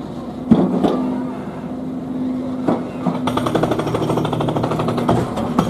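Jackhammer from major building work heard inside a living room. A few single knocks over a steady machine hum, then rapid continuous hammering from about three seconds in.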